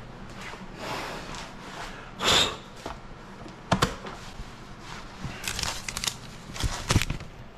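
Rustling and handling noises from objects being moved about, with a louder rustling burst about two seconds in and a few sharp clicks and knocks later on.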